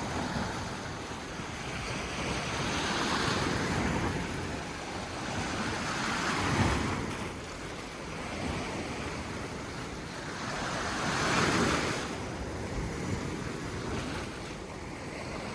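Sea waves washing onto a rocky shore, surging and fading every few seconds, with wind buffeting the microphone.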